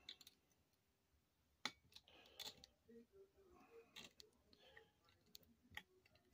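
Faint clicks and scraping of a folding multi-tool working a tight screw on a toy locomotive, a few separate clicks spread through the otherwise near-silent stretch.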